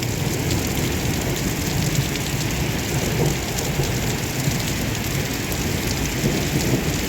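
Heavy downpour: a steady, dense rush of rain with many sharp individual drop impacts ticking through it.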